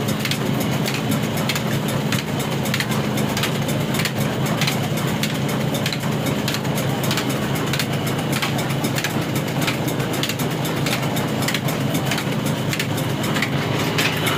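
24 HP old black horizontal single-cylinder diesel engine running steadily, its heavy flywheels turning and a flat belt driving a flour mill. A regular ticking about three times a second runs over the low engine note.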